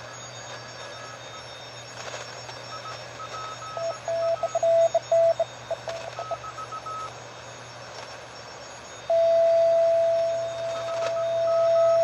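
Morse code signals on the 40-metre band heard through a PreppComm DMX-40 QRP transceiver over steady band hiss: a fainter, higher-pitched station keys on and off throughout, and a louder, lower-pitched station keys about four seconds in. From about nine seconds a steady unbroken tone at that lower pitch holds to the end.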